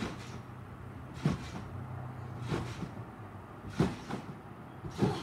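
A person bouncing on a trampoline: four thumps as he lands on the mat, about a second and a quarter apart.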